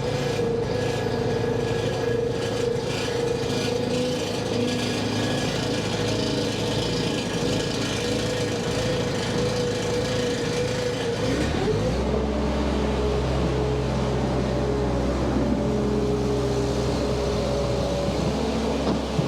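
Skid steer engine running steadily while cleaning out barn stalls; its note shifts about halfway through, with a stronger low hum after.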